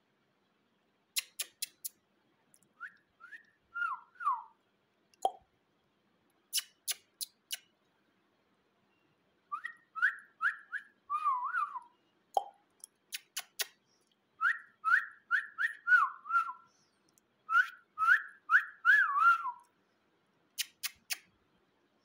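Whistling in short repeated phrases, each a run of quick rising notes followed by wavering falling notes around the same pitch. Groups of three or four sharp clicks fall between the phrases.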